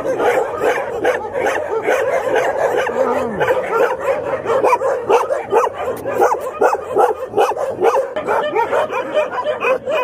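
A large pack of shelter dogs barking all at once: many overlapping barks in a loud, unbroken chorus.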